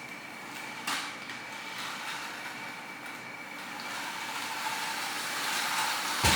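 Small electric motor of a remote-control toy car running with a steady whir that grows louder from about four seconds in. There is a light knock about a second in and a sharp knock near the end.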